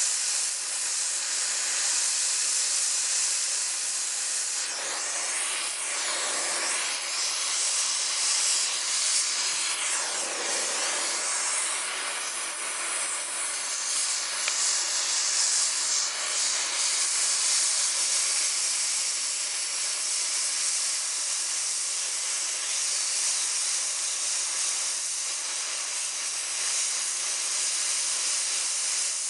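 Handheld propane torch burning with a steady hiss, its flame heating seized brake drum retainer screws toward cherry red to free them.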